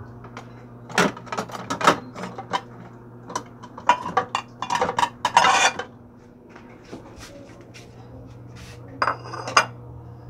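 Dishes and cutlery clattering as plates are handled, in clusters of sharp clinks and knocks. Near the end, a ceramic plate clinks with a short ring. A steady low hum runs underneath.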